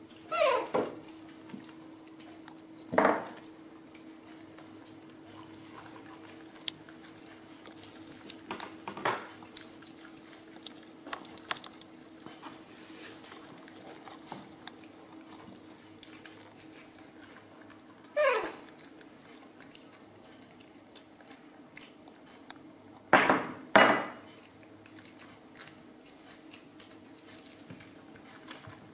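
Baby monkeys eating jackfruit on a table, with short high calls that fall in pitch just after the start and again about two-thirds of the way through. Sharp knocks come about 3 s in and twice in quick succession about 23 s in, over a steady low hum.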